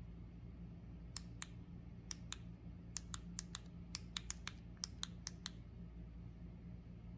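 Bandai Mugen Puchipuchi infinite bubble-wrap toy: about sixteen sharp little pop-clicks, mostly in quick pairs, as its bubbles are pressed, then they stop.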